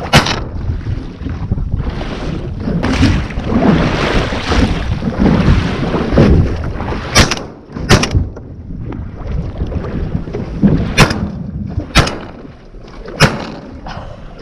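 Wind buffeting the microphone over open water around a layout boat, broken by about six sharp, loud bangs: one right at the start and the rest in the second half, two of them close together about a second apart.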